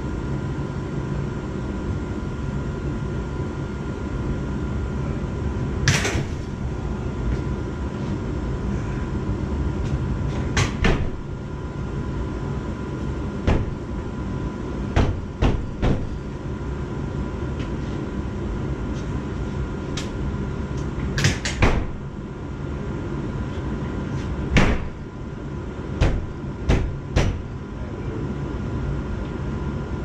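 Steady low hum of mechanical-room machinery, with about a dozen scattered knocks and clicks as a metal access door and its latches are handled.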